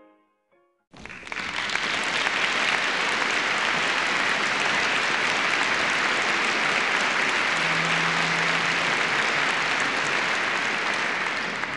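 Audience applause, a dense steady clapping that sets in about a second in and fades out near the end, just after the last notes of a piano die away.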